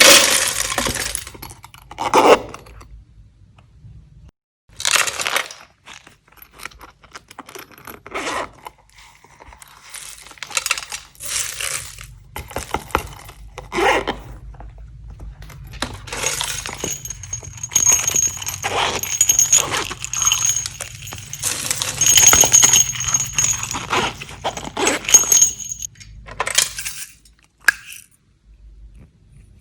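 Slime being squished and mixed by hand, in irregular bursts of sticky crackling and popping, with short pauses between handfuls.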